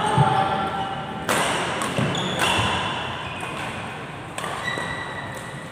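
Badminton rally: rackets striking the shuttlecock, several sharp hits a second or two apart, echoing in a large hall.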